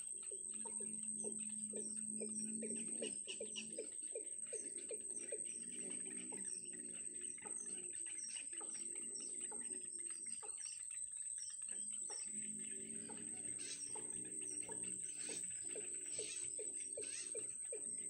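Bittern nestlings begging at the nest: a rapid run of short ticking calls, about three a second, with a short lull about two thirds of the way through. A steady high-pitched whine sounds throughout.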